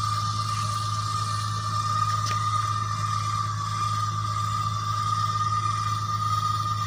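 Automatic geomembrane seam-welding machine running steadily as it crawls along the overlap of two 1 mm liner sheets, heat-fusing the four-inch seam at 340 °C: a constant whine over a low hum.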